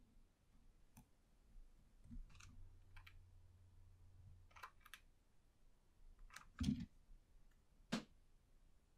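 Quiet handling of wooden popsicle sticks and a hot glue gun: scattered small clicks and taps, with a faint low hum from about two seconds in. A louder knock comes about two-thirds through, and a sharp click near the end.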